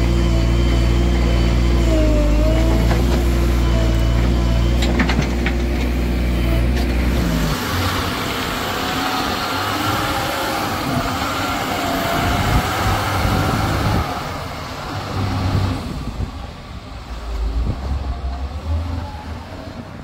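Heavy diesel machinery, the engine of a JCB 3DX backhoe loader: a steady engine note for the first seven seconds or so, which breaks off abruptly. A noisier stretch follows with a whine that wavers up and down, and the sound drops away near the end.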